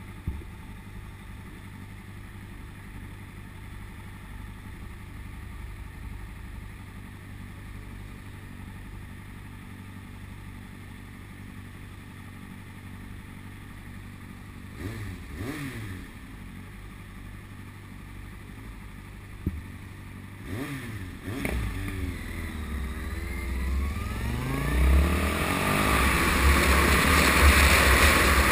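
Motorcycle engine idling steadily at a standstill, with a couple of brief revs, then revving up as the bike pulls away; wind noise on the microphone builds over the last few seconds.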